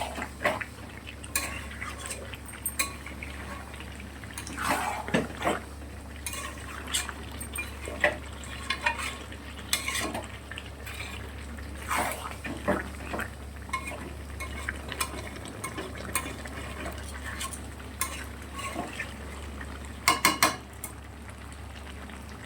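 A utensil stirring and scraping in a kadai of desi chicken curry with potatoes as it is stir-fried, in irregular strokes and knocks against the pan, the loudest about 5, 12 and 20 seconds in. A steady low hum runs underneath.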